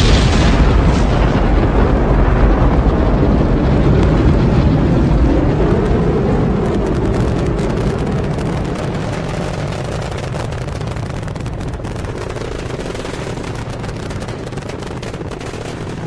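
Rocket launch roar: a loud, deep rumble of the engines at liftoff. From about six seconds in it thins into a ragged crackling and slowly fades as the rocket climbs away.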